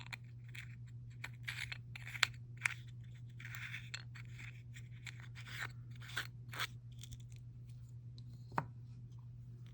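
Small jars of nail chrome powder and their packaging being handled: crinkling and scraping with several sharp clicks of lids and jars, over a steady low hum.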